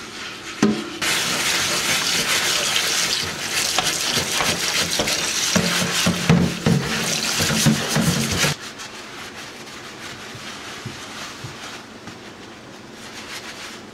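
Kitchen tap running water into a soapy sink, rinsing a cast iron waffle iron; the water cuts off about eight and a half seconds in. After that there is only quiet rubbing as the iron is wiped with a towel.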